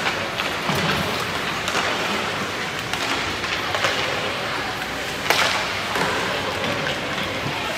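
Ice hockey rink during a warm-up: a steady hiss of skating and hall noise, broken by a few sharp cracks of pucks struck off sticks and boards, the loudest about five seconds in.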